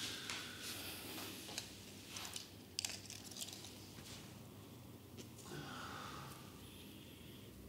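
Faint rustling and a few light clicks, with a pair of sharper clicks about three seconds in, as nitrile-gloved hands work dry needles in a patient's back.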